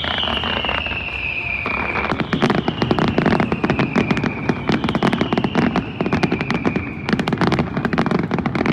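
New Year's fireworks: a high whistle slowly falling in pitch, then from about two seconds in a dense, rapid crackling of firecrackers that keeps on, with another falling whistle over it.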